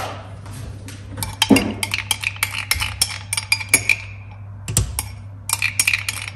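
Plastic spatula scraping and tapping inside a plastic yoghurt tub, a quick run of clicks and knocks as the yoghurt is scraped out into the mixing bowl.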